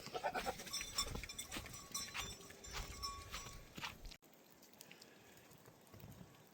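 Sheep in a flock, with short, faint bleats among clicks and knocks of movement. About four seconds in the sound cuts off to a quieter, even hiss.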